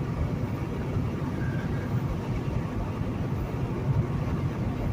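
Steady low drone of a semi truck's engine and road noise heard inside the cab while driving at highway speed.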